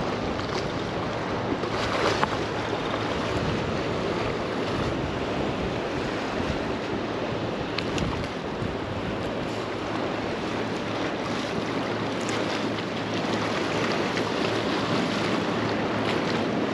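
Surf washing and wind blowing over the microphone, a continuous rushing noise, with a couple of faint clicks.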